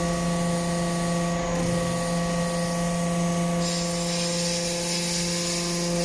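Hydraulic metal-chip briquetting press running: a steady, even hum-and-whine from its hydraulic drive, with a high hiss joining about three and a half seconds in.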